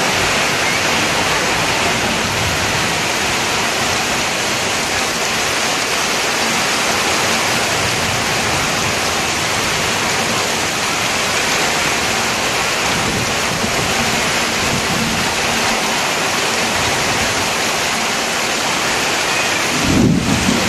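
Heavy rain pouring steadily onto flooded ground, a dense even hiss. A brief low thump near the end.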